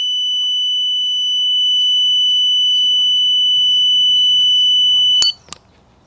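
Multimeter continuity beep, a steady high tone, sounding through a closed flame rollout limit switch as it is heated with a lighter. About five seconds in, the beep cuts off with a sharp click, followed by a second click: the switch's bimetal snap disc has tripped and opened the circuit from overheating.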